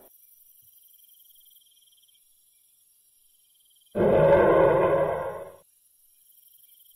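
A dinosaur roar sound effect, one growling roar about a second and a half long, starting about four seconds in. Faint insect chirping runs in the background around it.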